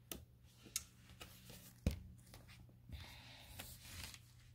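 Faint handling of a cardboard board book as it is closed: a few light clicks, a sharp tap about two seconds in, then a soft rustle as it is squared up in the hands.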